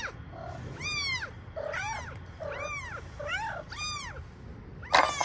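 Very young kittens mewing in a cardboard box: a run of short, high-pitched cries, each rising and falling, about one every half to three-quarters of a second, with a louder, rougher cry near the end.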